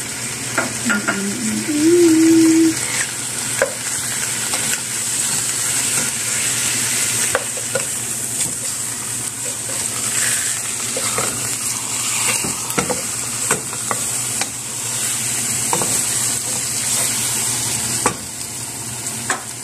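Chicken pieces sizzling steadily as they fry in oil in a pot, with a wooden spatula scraping and knocking against the pan now and then as they are stirred.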